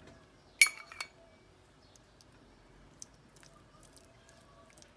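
A metal spoon clinks sharply against a frying pan twice, about half a second and a second in, the first with a brief ring, while spreading sauce over raw chicken; between and after, only a few faint ticks of the spoon.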